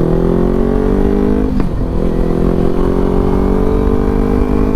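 Kawasaki Ninja 300 parallel-twin with an aftermarket exhaust, accelerating under way. Its note climbs steadily, drops briefly at an upshift about a second and a half in, then climbs again.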